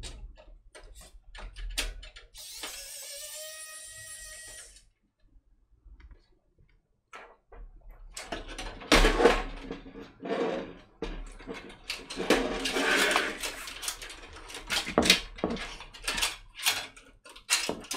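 Clicks, knocks and rattles of hands working inside a steel PC case as an all-in-one water-cooling radiator is unbolted and pulled out, busiest in the second half. A brief steady whine lasts about two seconds near the start.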